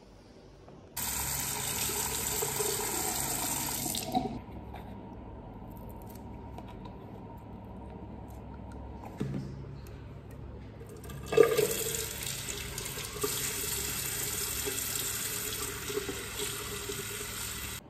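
Water running from a washbasin tap into the basin, turned on twice: from about a second in for some three seconds, then again from about eleven seconds until just before the end. The second time, hair is being rinsed under the stream. Between the two runs there are quieter handling sounds and a few light knocks.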